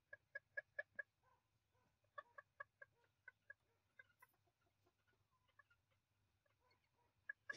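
Vietnamese bantam chickens clucking softly: a quick run of short clucks, about five a second, then a second run about two seconds in, then a few scattered clucks.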